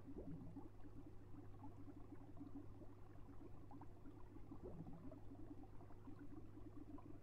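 Faint room tone with a steady low hum.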